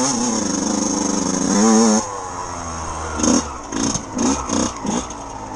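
Yamaha enduro motorcycle engine pulling steadily under throttle. About two seconds in the throttle closes and the engine drops back, then it is given a handful of quick short revs.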